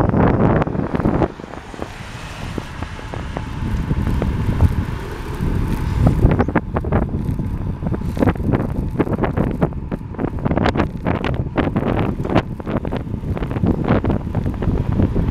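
Wind rushing and buffeting over the microphone of a road bike descending at speed, a loud low rumble with gusty thumps. It dips briefly about a second in, and the gusts come more often from about six seconds in.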